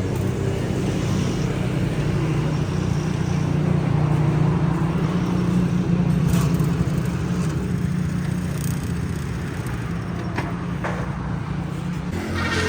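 Honda CD70's small single-cylinder four-stroke engine running steadily, its note shifting near the end.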